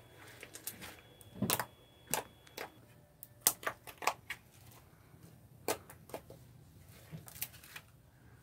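Slime being kneaded and pressed by hand on a tile floor, giving irregular sticky clicks and pops, the loudest about three and a half seconds in.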